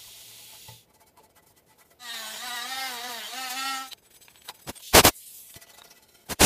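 A flying insect buzzing close by for about two seconds, its pitch wavering. About five seconds in there is one short, loud puff of breath, blowing dust off the brake hub.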